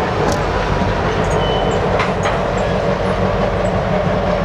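Norfolk Southern diesel locomotive running steadily as it moves a string of covered hoppers slowly along the track, with a few sharp clicks from the wheels and cars and a brief high squeak about a second and a half in.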